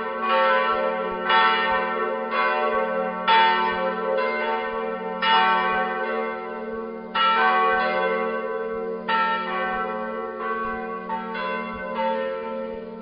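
Several church bells ringing together in a full peal. Strikes land about once a second and overlap over a sustained humming tone, and grow weaker near the end.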